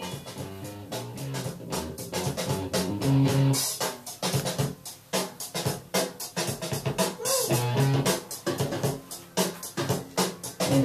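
Music with electric guitar, bass and a drum kit playing a steady beat.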